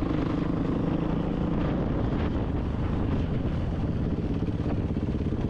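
Dirt bike engine running steadily, a low, rapidly pulsing drone.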